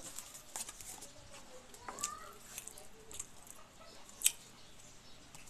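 Scattered clicks, taps and rustling as a takeout container of garlic rice is handled and the rice is pressed out onto a plate. There is a brief squeak about two seconds in and one sharp tap, the loudest sound, about four seconds in.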